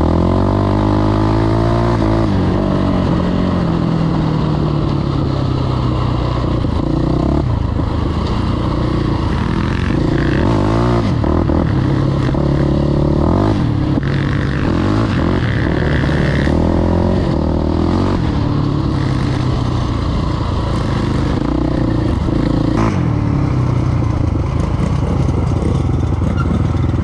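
KTM 525 XC quad's single-cylinder four-stroke engine heard from on board while it is ridden, the revs falling away at first and then rising and dropping again several times as the throttle is worked.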